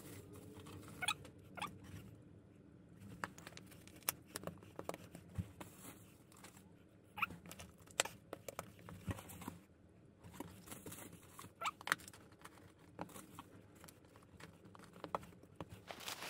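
Faint, irregular small clicks and rustles of glass mosaic tile pieces and their sheets being handled and pressed down onto a backer board.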